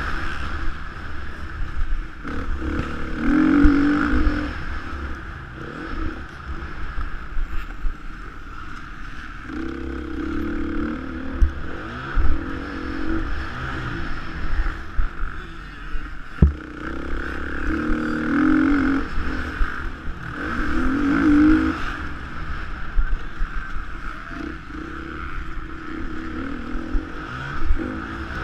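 Off-road motorcycle engine, recorded on board, revving up and falling back again and again as the throttle is opened and shut over a bumpy dirt track, with a sharp knock about halfway through.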